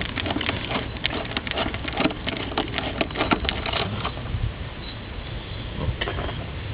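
Quick, irregular light clicks and rattles of parts being handled, dense for about four seconds and then thinning to a couple of clicks near the end over a steady low hiss.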